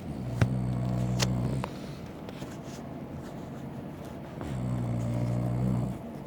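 A man snoring heavily: two long, low snores about four seconds apart, each lasting about a second and a half, with a sharp click near the start of the first.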